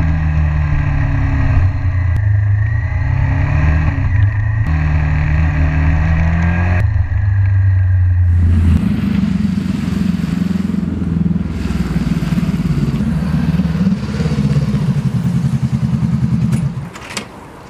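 Motorcycle engine running under way, heard from a camera mounted on the bike, its note stepping up and down a few times. From about eight seconds in a rushing wind noise joins it, and the sound falls away near the end.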